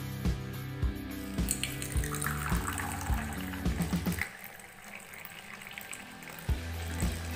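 Hot ginger-turmeric tea poured through a strainer into a cup, a splashing stream of liquid under background music with a steady beat. The pour falls away about four seconds in, and the music drops out for about two seconds before coming back.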